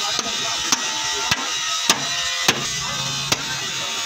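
Sledgehammer striking a steel drift held against a leaf-spring bracket on a truck chassis: about five sharp metal blows, a little over half a second apart, over background music.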